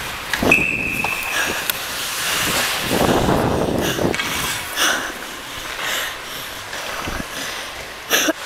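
Ice skates scraping and carving on the rink, stride after stride, heard from a camera worn by a skater, with wind noise rushing over the microphone. A short steady high tone sounds about half a second in, and a sharp click comes near the end.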